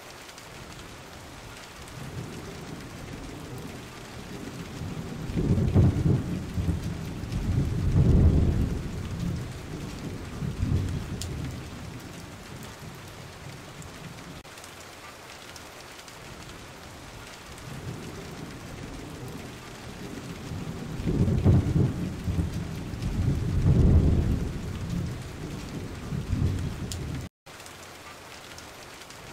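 Steady heavy rain with two long rolls of thunder, the first swelling about five seconds in and the second about twenty seconds in, each rumbling for several seconds. The sound cuts out for a moment near the end.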